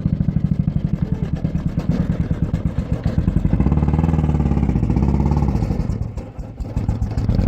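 1986 Ford Ranger's 2.3-litre four-cylinder engine running with a fast, pulsing beat, rising in pitch a little after the middle and dropping back near the end. It is the running moment that the owner ties to the rocker arm coming off its worn camshaft lobe, which left cylinder 4 not firing.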